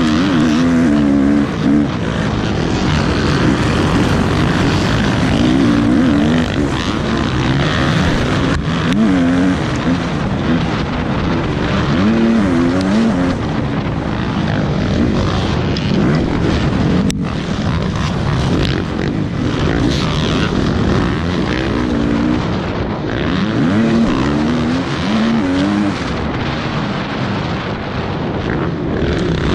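Motocross dirt bike engine revving hard and easing off again and again as it is ridden round the track, over a steady rush of wind noise.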